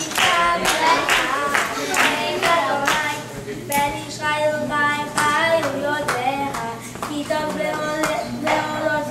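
A boy singing a song unaccompanied while the audience claps along in time, about two claps a second; the clapping mostly drops away about halfway through and the singing carries on.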